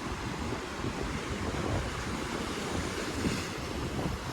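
Wind blowing across the microphone with a low, uneven rumble and hiss, over the steady wash of Pacific Ocean surf breaking on the beach.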